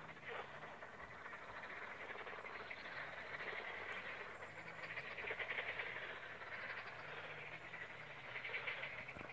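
A faint, continuous chorus of small animals calling from the lakeside, a dense rapid trill that swells and fades.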